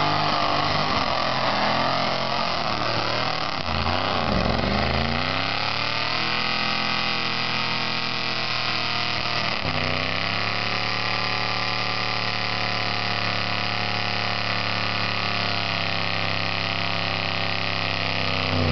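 Stock-class mud-bog truck's engine under load through the mud pit. The engine note falls and climbs again over the first several seconds, dips briefly about ten seconds in, then holds steady at high revs.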